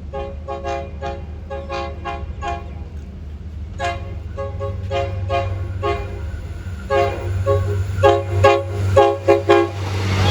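Thai railway locomotive air horn tapped in rapid short toots, about three a second, in three runs separated by short pauses, the last run louder. A steady low hum runs underneath.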